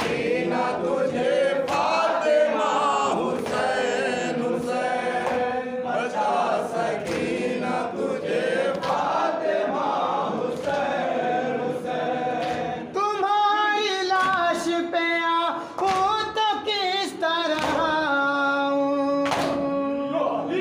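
Men chanting a noha (Muharram lament) together, with sharp chest-beating slaps of matam falling in time about once a second. In the second half a single lead voice holds long notes.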